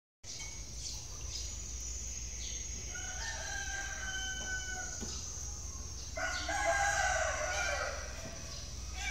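Two long, drawn-out animal calls, one about three seconds in and a louder one about six seconds in, each held for around two seconds.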